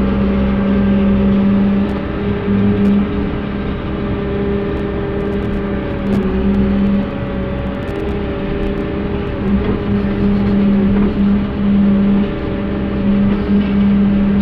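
Excavator's diesel engine and hydraulics running steadily, heard from inside the cab: a strong hum with a higher whine above it, the pitch sagging briefly a few times as the arm and bucket work under load.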